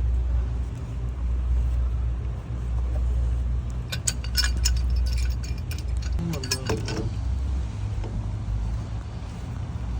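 Steady low mechanical rumble, with a run of sharp metal clinks and clicks from about four to seven seconds in, as of threaded steel gas fittings and tools being handled.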